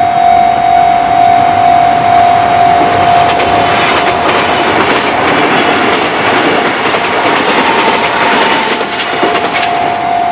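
Railroad crossing warning bell ringing with a steady pulsing tone. From about four seconds in, a train passes with a loud rushing noise that lasts most of the rest, and the bell's tone comes back clear near the end.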